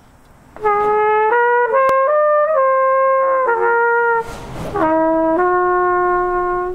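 Trumpet playing a slow phrase of sustained notes that step up and back down, then, after a short break about four seconds in, a second phrase ending on a long held low note.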